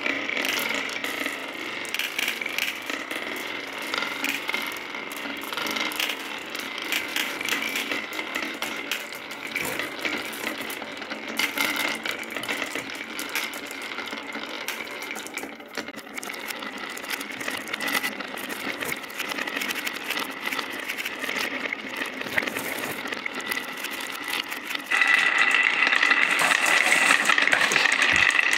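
Glass marbles rolling and clattering down wavy wooden slope tracks in a continuous rattle of clicks. About 25 seconds in it turns suddenly louder and denser as many marbles stream down together.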